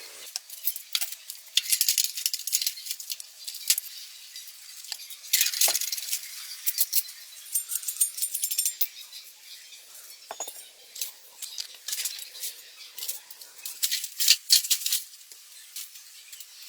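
Irregular sharp clicks, clinks and short rattles of hand tools and metal parts being handled.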